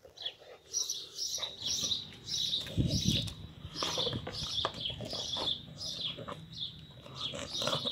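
A large dog eating bread from a plastic bowl: wet chewing and lapping clicks as its muzzle works in the bowl, with a dull bump about three seconds in. A string of high chirps runs about twice a second throughout.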